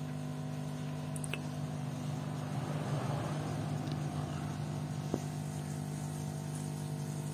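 Aquarium pump running with a steady hum, with a soft rush of moving water swelling in the middle and a faint click about five seconds in.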